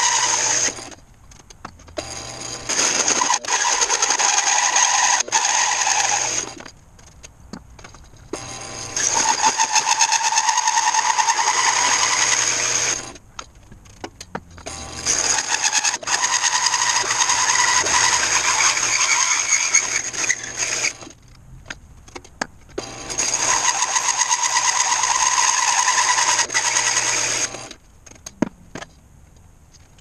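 A benchtop drill press with a hole saw cutting through a wooden board, in four long cuts of about four to six seconds each. Each cut has a steady whine, and the motor hums on in the quieter gaps between them.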